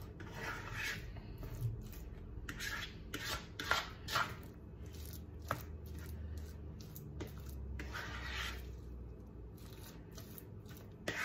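A fork stirring and scraping through a cream cheese, chopped pickle and ham dip in a bowl, in irregular strokes with a few sharper clicks of the fork against the bowl.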